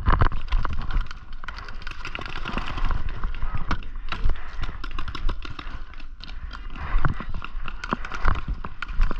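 Footsteps running and shuffling over wood chips and dirt, with many short sharp clicks and knocks scattered through.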